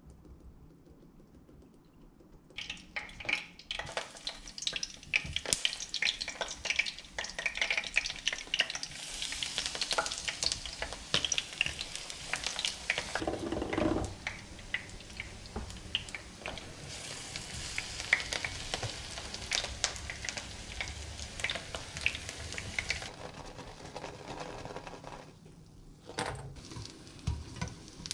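Eggplant pieces frying in hot oil, a steady sizzle full of small crackles and pops that starts about two and a half seconds in and dies down in the last few seconds.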